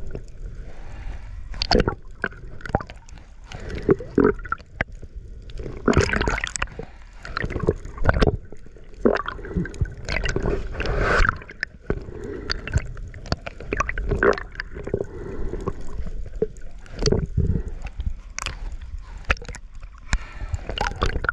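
Water sloshing and gurgling around a camera held underwater and at the surface while a spearfisher swims, in irregular splashes and surges.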